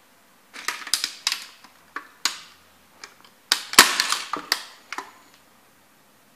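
Plastic of a vintage kit model car cracking and snapping under a Timberland boot: a quick run of sharp cracks about half a second in, two single snaps around two seconds, then a louder dense burst of cracking around four seconds in as a piece of the body breaks off.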